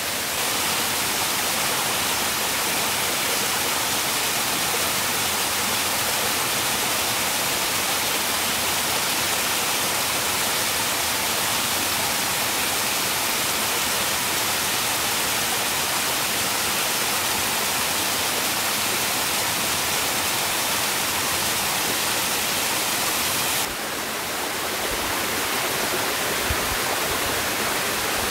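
Steady rushing water noise at an even level. About three-quarters of the way through the sound shifts slightly and a few soft low knocks follow.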